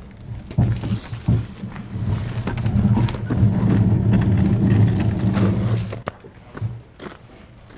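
Bobsled runners grinding and rumbling over ice as the sled slides slowly along. The sound builds about two seconds in, is loudest for about three seconds and dies away near the end, with scattered clicks of boots on the ice.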